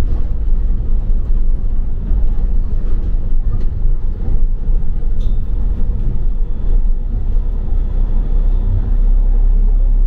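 A double-decker bus driving, heard from on board: a steady low rumble of engine and road noise.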